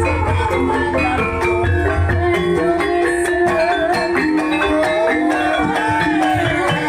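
Banyumasan calung music accompanying a lengger dance: struck bamboo keys playing fast repeating interlocking patterns over a steady low drum beat, with a gliding melody line rising and falling over it in the second half.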